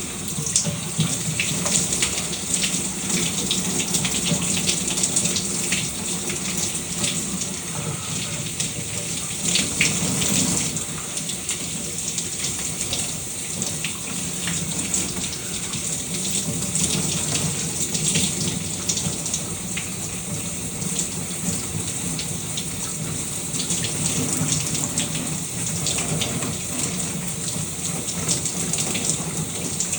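Shower water running steadily, spray spattering onto a surface with many small irregular splashes.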